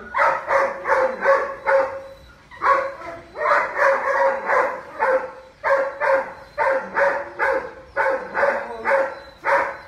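Doberman barking hard and repeatedly, about twenty barks in quick runs of two to three a second with short pauses between the runs, agitated by a decoy waving a flag at it.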